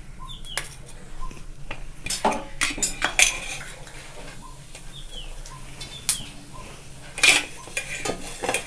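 Metal spoon clinking and knocking against a frying pan and spice container as cumin seeds are put into hot mustard oil, in two clusters of sharp clicks about two seconds in and about seven seconds in. Small high chirps repeat faintly behind it.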